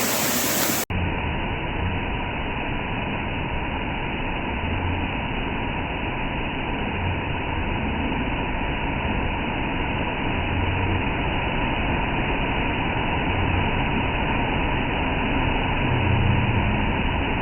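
Waterfall roar for about the first second, then a sudden cut to a steady, muffled rumble with uneven low pulses, of the kind a vehicle makes when it is moving.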